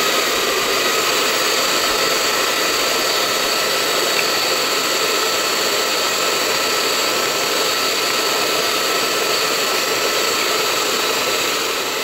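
Electric hand mixer running steadily with a constant whine, its beaters whipping egg whites into foam in a plastic bowl.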